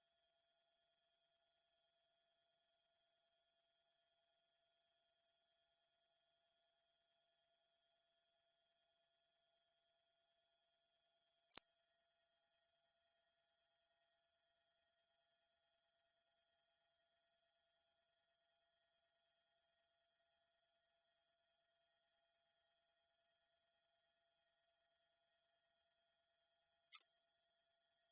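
Dog whistle sound effect: one steady, very high-pitched pure tone held without a break, with two faint clicks, about twelve seconds in and near the end.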